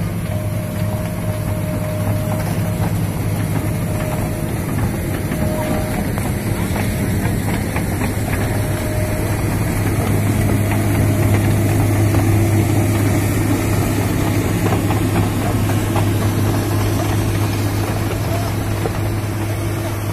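Heavy diesel engine of a Komatsu PC200 crawler excavator running steadily close by, with a low hum that grows louder around the middle as it works.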